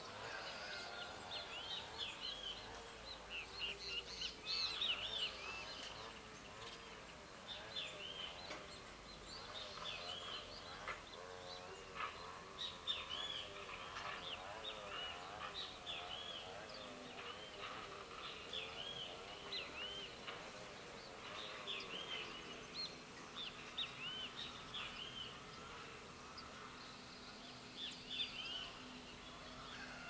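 Flock of small seed-eating birds feeding on the ground, giving many short, high chirps that overlap one another in a continuous chatter.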